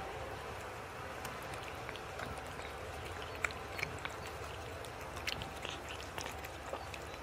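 Two cats eating wet cat food from a plastic tub: irregular small wet clicks and smacks of chewing and lapping, a few louder ones in the middle, over a steady low background noise.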